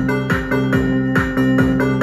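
Music with a fast, steady beat.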